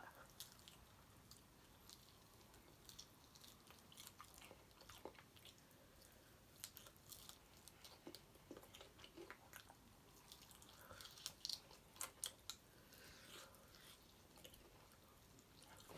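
Faint mouth sounds of someone eating chicken wings: quiet chewing with scattered small clicks and crunches, a little more frequent in the second half.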